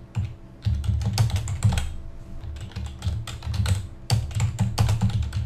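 Typing on a computer keyboard: rapid keystrokes in two quick runs, with a lull about two seconds in.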